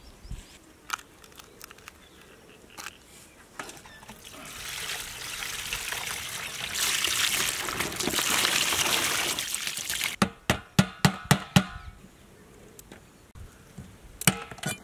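Water pouring and splashing over raw crab pieces in a metal tray as they are rinsed by hand, building up about four seconds in and stopping about ten seconds in. Then a quick run of about eight sharp knocks.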